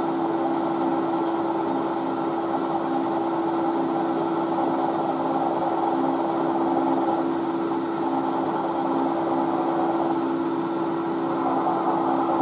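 Milling machine spindle running steadily with an even hum while a twist drill cuts down into a metal block, drilling an oil feed hole to the depth stop.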